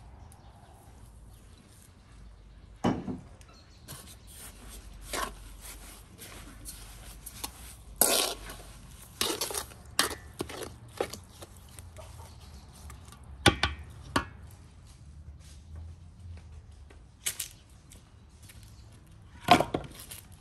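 A wooden spatula scraping and knocking against a large metal bowl while a thick mixture is stirred, in a string of separate scrapes and clacks. Near the end comes one loud knock of wood being set down.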